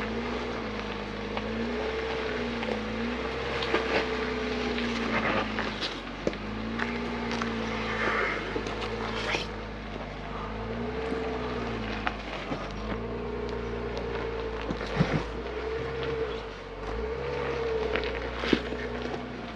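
A 4x4 SUV crawling slowly over a rocky trail: the engine runs low and steady, the tyres crunch and knock on rocks and gravel, and a whine rises and falls in pitch every couple of seconds.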